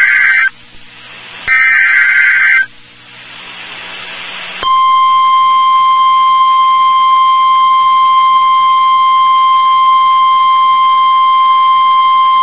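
NOAA Weather Radio alert signal: the tail of one SAME digital header burst, a second data burst about a second and a half in, a short rising hiss, then from about four and a half seconds in the steady 1050 Hz warning alarm tone, which signals that a warning, here a severe thunderstorm warning, is about to be read.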